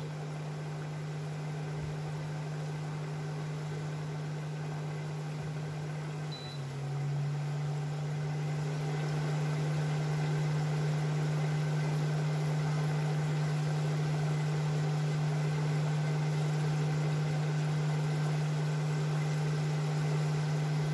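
Potato fries bubbling and sizzling in hot oil in a stainless-steel pot during their second frying, which is meant to crisp them. A steady low hum from the cooker runs under it, dropping slightly in pitch and growing louder about six seconds in.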